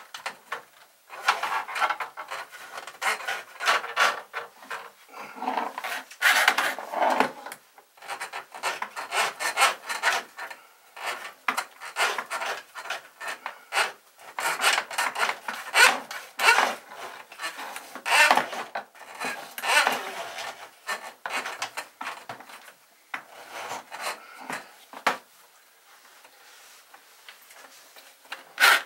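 Irregular rubbing and scraping strokes of hand work on sink drain plumbing, going on and off and dying away near the end, with a short sharp knock at the very end.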